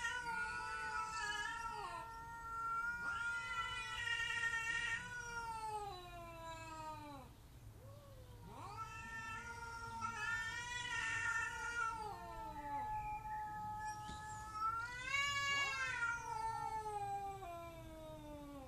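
Cats caterwauling: long, drawn-out yowls that waver and slide up and down in pitch, sometimes two voices overlapping, in three waves with short lulls between them.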